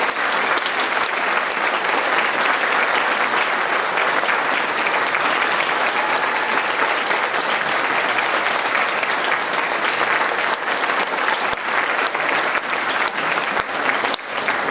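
Theatre audience applauding steadily, many hands clapping at once.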